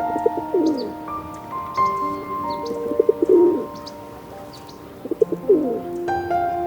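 A bird calling three times, a couple of seconds apart, each call a quick low stutter that ends in a falling glide, with faint high chirps above, over background music with long held notes.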